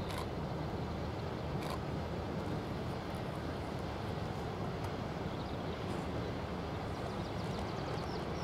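Steady low rumble of a distant heavy freight train hauled by VL11M electric locomotives. Faint high chirps come in near the end.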